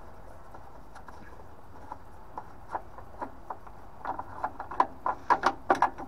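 Small clicks and taps of a screw cap inside a combi boiler being turned off by a gloved hand. They come sparsely at first, then quicker and louder in the last two seconds, over a steady low hum.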